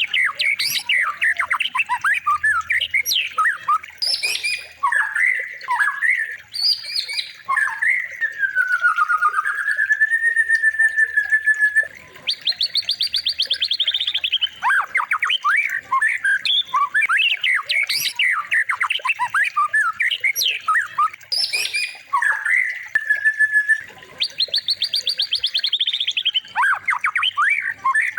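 A songbird singing a rapid, varied song of whistled sweeps and chatters, broken by a long wavering whistle and a fast trill. The same phrases come round again about every twelve seconds.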